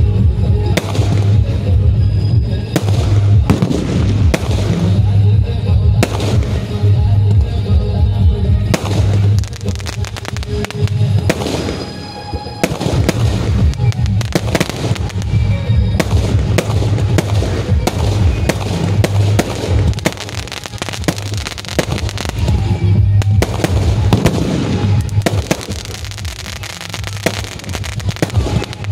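A multi-shot aerial firework firing in rapid succession: a dense string of launches, bangs and crackles as the shots burst overhead. Music with a strong bass plays along, and the firing thins out briefly about twelve seconds in and again near the end.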